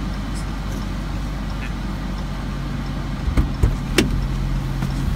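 Parked car's engine idling, a steady low hum heard inside the cabin. About three and a half seconds in, a few clicks and a knock as a rear door is unlatched and opened.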